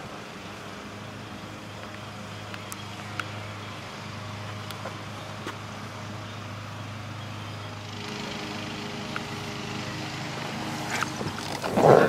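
2002 Ford Thunderbird's 3.9-litre V8 idling steadily, a low even hum whose tone shifts about eight seconds in. A brief louder, wavering sound comes near the end.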